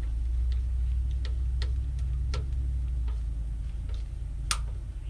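Light metallic clicks at irregular intervals, roughly one a second, from hand tools working on hose clamps, with a sharper click near the end, over a steady low hum.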